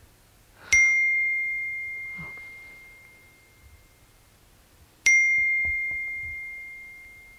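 Two phone text-message notification dings, about four seconds apart: each a single bright chime that starts suddenly and fades slowly.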